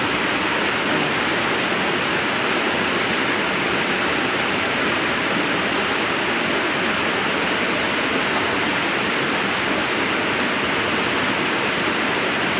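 Steady rushing of river water, an even noise that goes on without a break.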